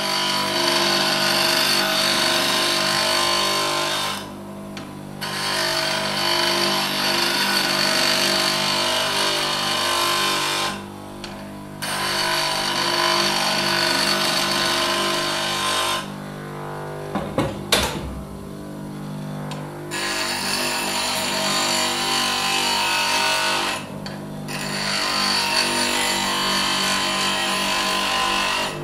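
Motor-driven grinding wheel running with a steady hum while a tool is pressed against it for sharpening, giving a harsh, hissing grind in long passes of about six seconds. The tool is lifted off briefly three times and for a longer spell about two-thirds through, when a few sharp clicks are heard over the hum.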